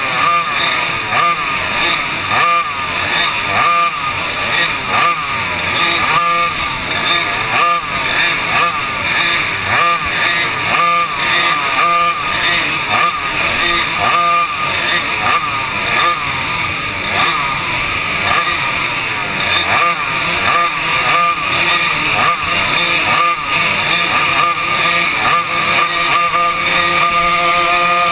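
Racing kart engine heard onboard at close range, revving up and dropping back again and again as the kart is driven hard around a dirt oval.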